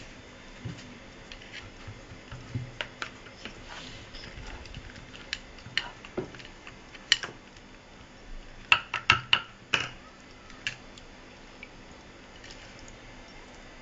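Mussel shells clicking and clinking against each other and the dishes as they are picked up and laid one by one over the potatoes, with a quick run of four or five sharper, ringing clinks about nine seconds in.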